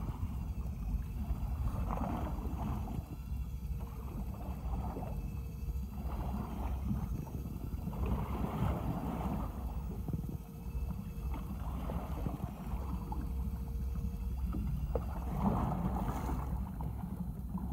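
Small fishing boat's engine idling with a low, steady rumble, while waves slap against the hull in surges every couple of seconds.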